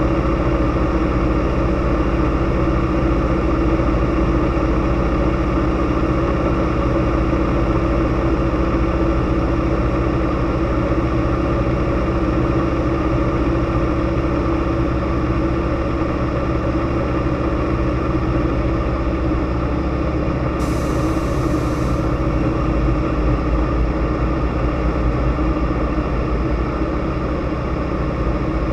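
Z-37A Čmelák's nine-cylinder radial engine and propeller running at a steady drone in low-level flight, heard inside the cockpit together with the rush of airflow.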